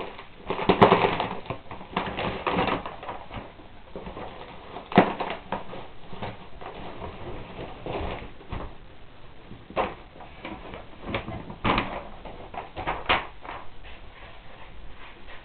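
Scattered knocks and clicks, with some rustling, as a new longboard and its parts are handled.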